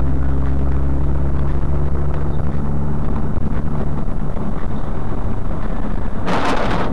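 Vehicle engine and road noise heard from inside the vehicle, a steady low hum that fades into rougher noise about three seconds in. Near the end a sudden loud, noisy burst breaks in.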